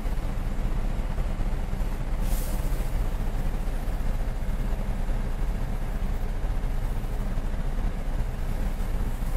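Steady low rumble inside the cabin of a Cadillac SRX, its engine running, with a short hiss about two seconds in.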